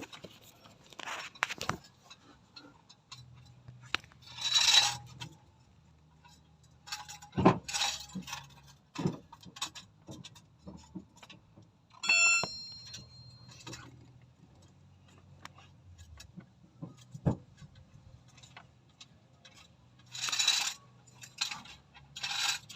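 Hand tools clinking and knocking on metal during work on a car's starter motor, with one ringing metallic clang about halfway through. Two short loud hisses, one near the start and one near the end.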